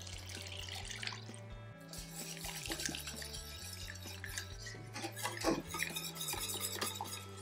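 Milk pouring into a stainless-steel saucepan of roux while a wire whisk stirs and scrapes against the pan, with a brief louder knock about five and a half seconds in, over soft background music.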